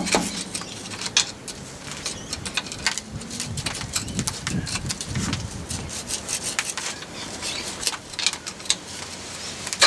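Irregular light clicks and knocks of hand tools being handled while working at the rear differential.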